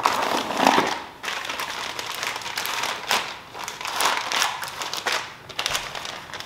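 Clear plastic bag crinkling and rustling as it is handled, on and off in uneven spells.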